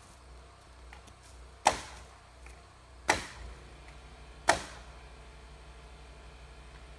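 Three sharp knocks of a hammer striking framing lumber, evenly spaced about a second and a half apart, each dying away quickly.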